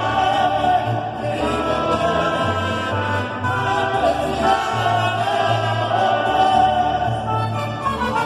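Mariachi band playing a son, several voices singing together over the instruments, with a bass line moving in short held notes.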